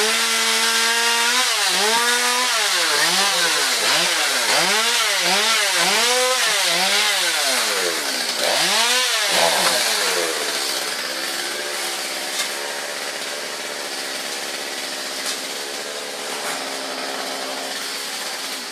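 Chainsaw engine revved up and down again and again for about ten seconds, then idling steadily until it cuts off at the end.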